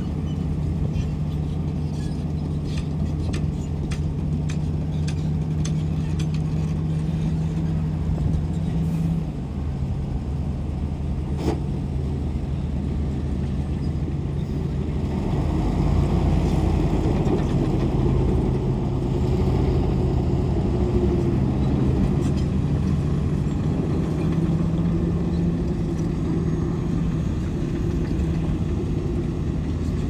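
Heavy diesel earthmoving machinery running steadily, with scattered clanks early on. The engine note drops about a third of the way in, and from about halfway the sound grows louder and rougher.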